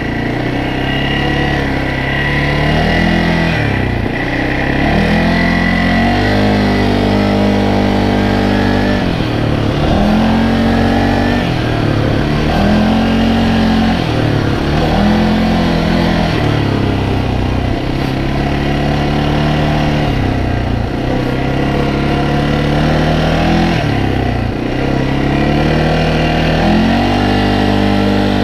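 Single-cylinder engine of a 2021 CFMOTO CForce 600 Touring ATV being ridden hard, revving up and easing off again and again, the pitch rising and falling every two to three seconds.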